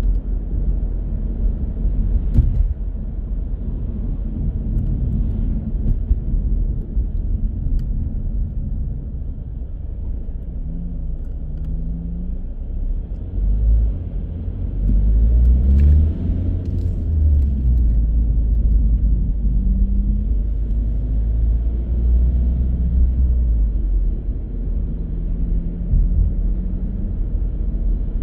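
A car driving, with a low, steady engine and road rumble. Several times the engine note rises in short runs as the car picks up speed, and the rumble is loudest around the middle.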